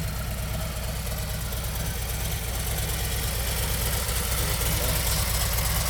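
2023 Harley-Davidson Street Glide Special's 114 cubic inch V-twin idling steadily through a Rinehart exhaust.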